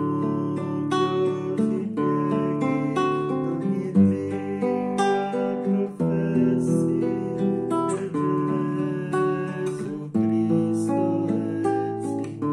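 Classical nylon-string guitar strummed in chords, the bass note changing every couple of seconds, with a man singing along.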